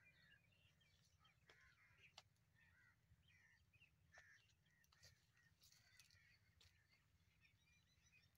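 Very faint outdoor field ambience: scattered bird calls and chirps, a few sharp clicks, over a steady low hum.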